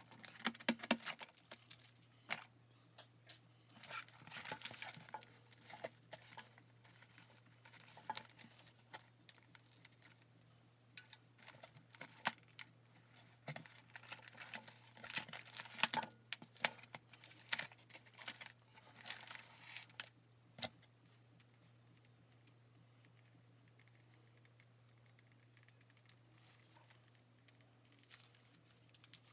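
Crinkling and rustling of doll packaging being opened and handled, with irregular clicks and scrapes. It dies down about two-thirds of the way in, leaving a faint steady low hum.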